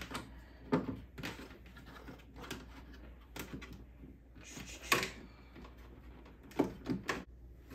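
Scattered plastic clicks and knocks as an air-assist hose and its plastic guide pieces are pressed and clipped by hand into a laser cutter's frame, the loudest knock coming about five seconds in.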